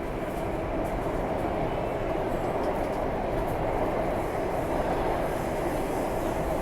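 Alstom Metropolis C751C metro train running steadily, heard from aboard: a continuous rumble of wheels on rail with a steady hum.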